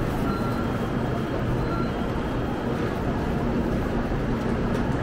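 Steady running noise of a Shinkansen bullet train, an even rumble with a low hum. Two faint short beeps sound in the first two seconds.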